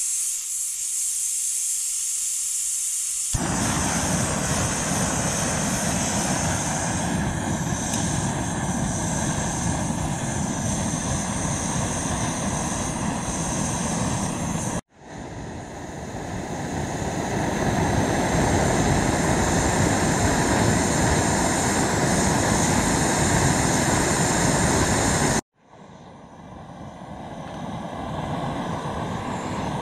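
MSR gas canister stove: gas hissing from the open valve, then the burner lights about three seconds in and burns with a loud, steady rushing noise under a titanium pot. The sound cuts out suddenly twice and builds back up each time.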